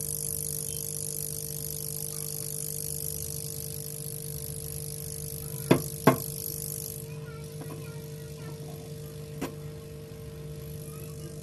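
Hot air rework gun blowing steadily, a hiss over a constant electrical hum, heating a phone's charging socket to seat it. Two sharp clicks come close together about six seconds in; the hiss drops away soon after, and a lighter click follows later.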